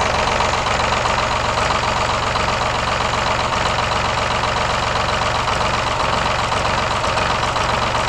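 Engine running steadily, powering the hydraulics of a log-loading crane while its control levers are worked to move a log.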